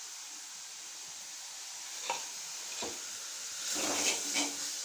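Onion-and-tomato masala sautéing in hot oil in a kadai: a steady sizzle, with a couple of light spoon taps about two and three seconds in and louder stirring and scraping near the end.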